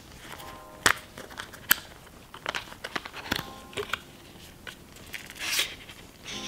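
Paperboard packaging tray handled: sharp clicks and crinkling as its folded flaps are opened and a coiled USB-C cable is pulled free. There are two loud clicks within the first two seconds and a longer rustle near the end.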